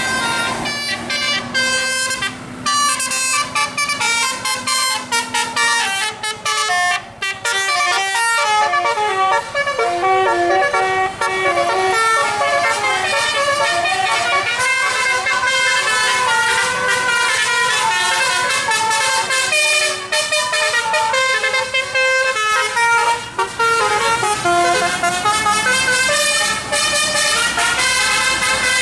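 Indonesian bus 'basuri' musical air horn playing a tune: a long run of quick notes that step up and down in pitch.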